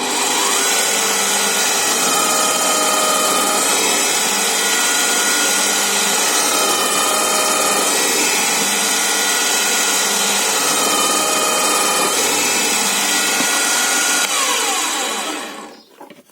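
Zubr benchtop drill press spinning up and running steadily at a raised speed. Its pitch dips briefly about three times as the bit bores holes down to the depth stop, then it spins down near the end.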